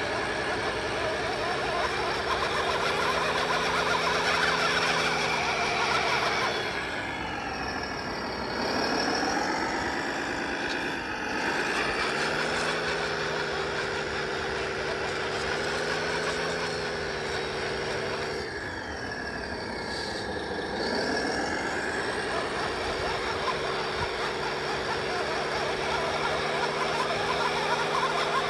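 The electronic engine sound system of a 1/6-scale RC Humvee plays a steady truck engine note as the truck drives, with a higher whine gliding along with it. The pitch sinks and climbs back up twice: about a quarter of the way in, and again past two-thirds.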